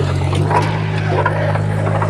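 Heavy diesel earthmoving machinery running steadily with a low hum, with a few short sharp sounds over it.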